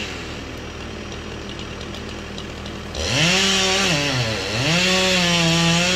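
Two-stroke chainsaw idling, then revved up to full speed about three seconds in, dropping briefly and revving up again to hold high.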